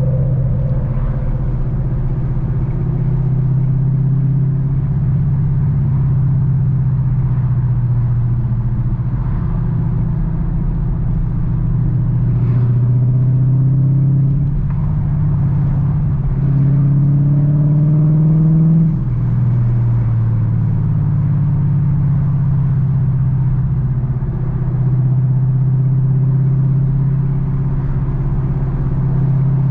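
A car's V8 engine running under way, a steady low drone that climbs in pitch as it accelerates about two-thirds of the way through, then drops back suddenly, as if on a shift or lifting off the throttle.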